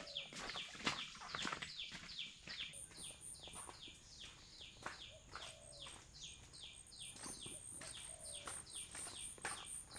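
Forest ambience: a bird or insect call, a short falling note repeated two to three times a second, with a high pulsing insect trill joining about three seconds in. Scattered knocks and crackles run through it, like footsteps on leaf litter.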